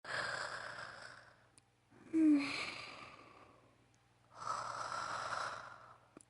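Acted snoring in a woman's voice: three slow sleeping breaths. The second, about two seconds in, is the loudest, a snort with a short falling squeak, and the third is a long drawn breath near the end.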